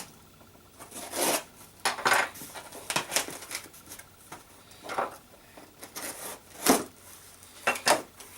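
Cardboard shipping box and its paper packing being handled and opened: a run of irregular rustles, scrapes and knocks, with two sharper knocks near the end.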